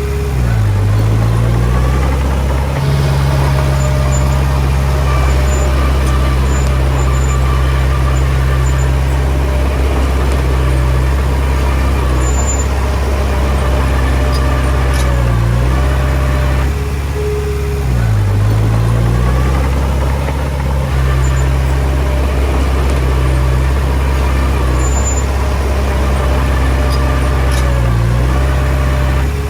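Komatsu D20P bulldozer's diesel engine running steadily under load. Its note dips and recovers briefly a few times: about a second in, twice around the middle, and near the end.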